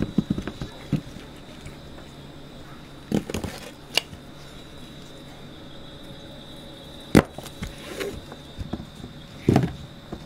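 A cleaver knocking sharply on a plastic cutting board as a row of hot-dog sausages is chopped, with a few softer knocks as the sausages are handled. The loudest knock comes about seven seconds in, over a faint steady hum.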